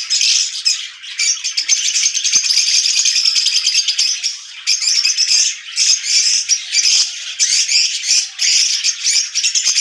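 A flock of lovebirds chattering and chirping without pause, a dense, rapid, high-pitched twittering of many birds at once.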